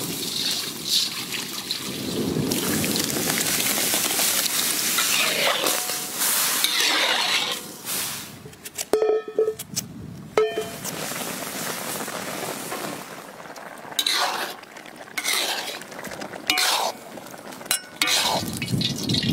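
Cooking sounds: liquid being stirred and poured, with clinks of pots and utensils and a few sharp knocks near the middle.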